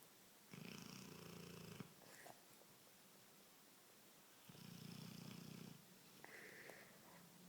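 Cane Corso (Italian mastiff) snoring in its sleep: two long snores about four seconds apart, each lasting just over a second, then a softer, higher breath near the end.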